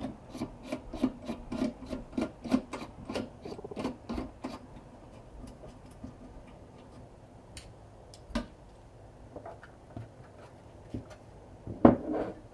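Small Torx screwdriver backing out the screws that hold the circuit board in a car audio amplifier module: a run of regular clicks, about three a second, for the first four seconds or so, then a few scattered clicks and a sharper click near the end.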